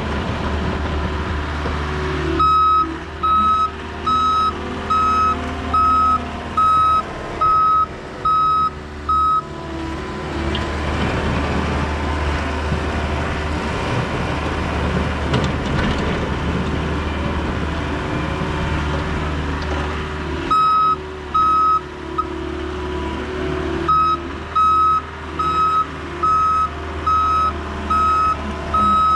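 John Deere 325G compact track loader's diesel engine running steadily while plowing snow, with its reverse alarm beeping at one pitch about every 0.7 s each time it backs up: one long spell a few seconds in, a short one past the middle, and another starting near the end.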